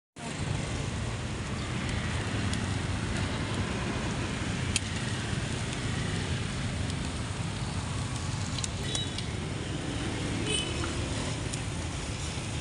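Steady street noise with a low rumble of motor traffic, and a few sharp clicks and clatters about five and nine seconds in.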